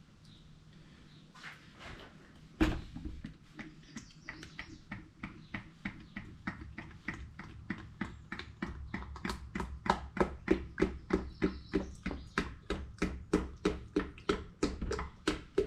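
Motor oil glugging out of a jug as it is poured, an even rhythm of about three glugs a second that grows louder. A single sharp knock comes just under three seconds in.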